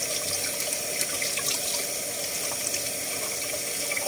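Kitchen tap running in a steady stream into a pot of water, splashing, while hard-boiled eggs are peeled under it, with a few faint ticks.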